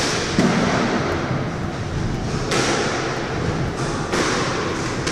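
Squash ball being struck by rackets and smacking off the court walls during a rally, a few sharp hits a second or two apart, each echoing around the enclosed court.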